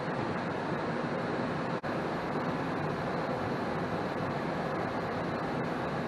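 Goodman 80% single-stage gas furnace running with its blower on: a steady, even rush of air and motor noise, cut off by a brief dropout just before two seconds in.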